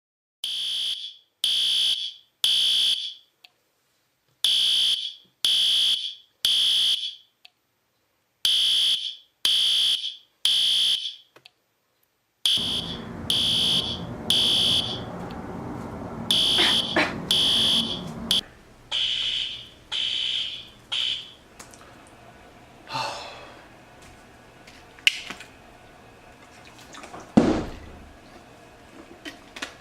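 Fire alarm sounding in the temporal-three pattern: groups of three high-pitched beeps, repeating about every four seconds, six groups in all. Partway through a steady background hiss comes in under it. The beeping stops a little past twenty seconds, and a few brief sharp sounds follow near the end.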